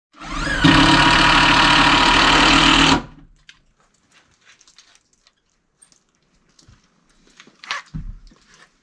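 Cordless drill running against the wooden cover, spinning up quickly and then running steadily for about three seconds before stopping abruptly.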